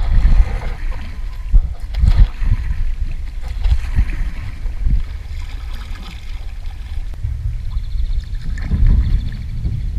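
Kayak paddle strokes dipping and splashing, with water sloshing along an inflatable kayak's hull, over a gusty low rumble of wind on the microphone.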